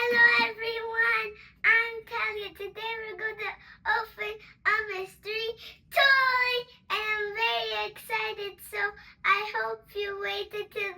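A child singing a short tune in a high voice, phrase after phrase of held notes.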